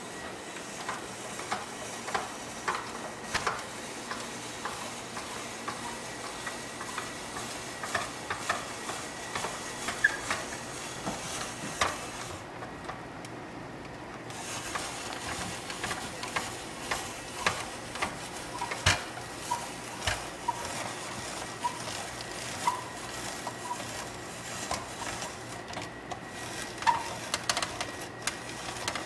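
Hand-cranked plastic spiralizer cutting a zucchini into noodles: an irregular run of clicks and slicing sounds as the crank turns and the blade shaves the vegetable, over a steady hiss, with a few short squeaks midway.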